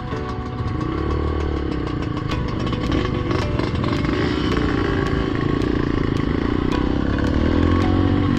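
Dirt bike engine running while riding, its pitch rising and falling as the throttle changes, with scattered sharp clicks.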